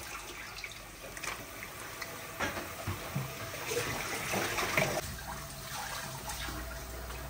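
Water running and splashing, with irregular clatters and knocks; a low steady hum comes in about five seconds in.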